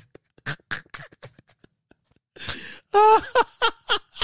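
A man laughing: a run of short breathy puffs, then a few quick, high-pitched voiced bursts about three seconds in.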